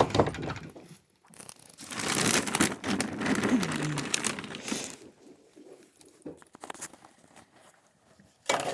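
Rustling and crinkling handling noise, loudest for a few seconds in the middle and then dying down to scattered faint rustles.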